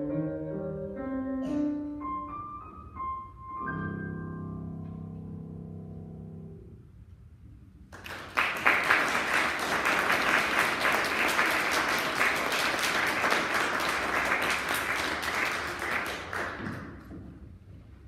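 Grand piano playing the closing bars of a song, ending on a held chord that dies away. Then audience applause for about eight seconds, fading out near the end.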